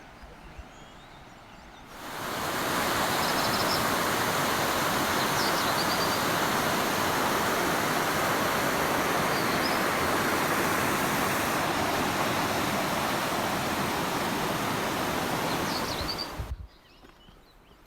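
Steady rushing water, a loud even hiss and roar that starts about two seconds in and cuts off suddenly near the end, with quieter outdoor ambience on either side.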